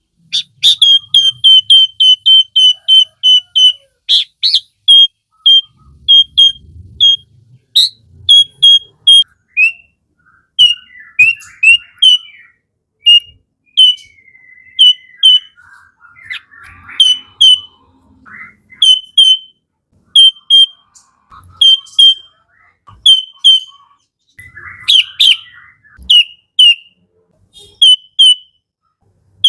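Sooty-headed bulbul calling: at first a fast series of short, sharp, high notes, about five a second, then the notes come in spaced pairs. Warbled, gliding phrases break in twice, once in the middle and once near the end.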